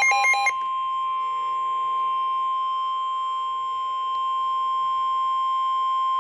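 Emergency alert broadcast tones: a run of rapid electronic data bursts cuts off about half a second in, and a steady single-pitch alert tone of about 1050 Hz, the NOAA Weather Radio warning alarm, holds for the rest.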